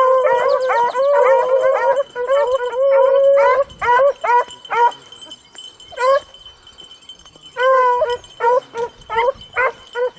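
A pack of beagles baying on a rabbit's trail. Many overlapping drawn-out bawls for the first few seconds, then only a couple of single calls and a short lull, before the chorus picks up again near the end.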